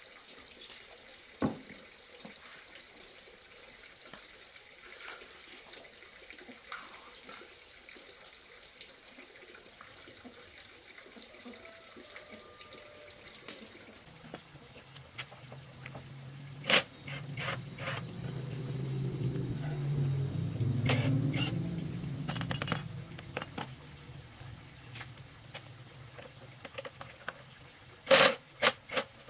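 A cordless power tool with a socket gives two short bursts near the end, working the fasteners on a Cub 72 motorbike. Before that there is a faint steady hiss, and a low hum that swells in the middle and fades, with a few clicks.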